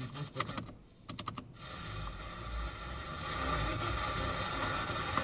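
A quick run of clicks as a car FM radio is stepped up through frequencies, with the audio briefly muting between them. Then comes a steady radio hiss from a weak or empty frequency, which grows louder as the volume is turned up.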